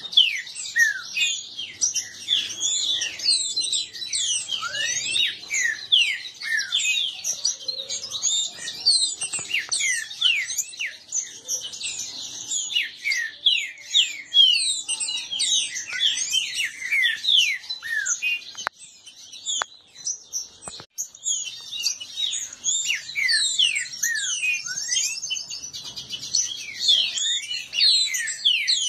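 Caged green-winged saltators (trinca-ferro) singing fast in a contest: rapid whistled phrases of quick up-and-down slurs, one on top of the other, almost without pause. There is a short lull with a few clicks about two-thirds of the way through.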